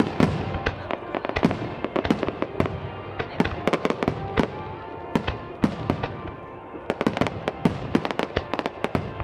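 Fireworks shells bursting in a rapid, irregular string of bangs, thickest near the end, over background music.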